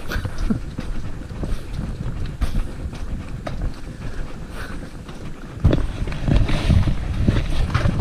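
Wind rumbling on the microphone of a handheld camera carried at a walk, with gusts from about six seconds in.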